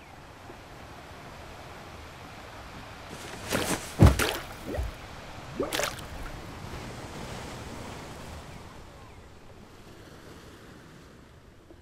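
Water ambience: a steady wash of gentle waves, with a few splashes about four seconds in, the loudest with a low thump, and one more splash near six seconds.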